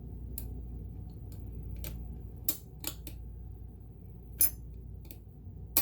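Scattered light metallic clicks and clinks from metal parts of an Elna Supermatic sewing machine being pulled, pushed and fitted back around the needle plate, with two sharper clicks, one past the middle and one at the end.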